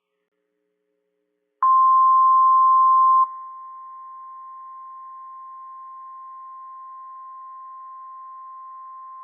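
NOAA Weather Radio warning alarm tone: a single steady 1050 Hz beep, the signal that a warning broadcast is about to follow. It starts suddenly about a second and a half in, loud for about a second and a half, then drops sharply in level and holds steady.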